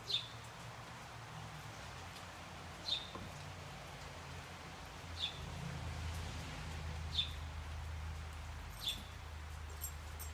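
Infant raccoon giving short, high-pitched squeaks, five in all, about two seconds apart, each dropping a little in pitch.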